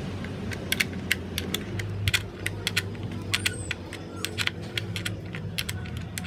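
Ratchet wrench clicking in short, irregular runs as an 8 mm bolt under a motorcycle headlight is loosened.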